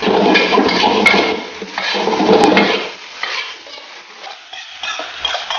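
Metal spatula scraping and turning fried rice in a wok, the rice sizzling in the hot pan. Loud for the first three seconds, then quieter, scattered scrapes and clicks.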